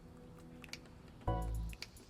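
Background music: a low bass note with a pitched chord over it starts a little over a second in, amid light clicking.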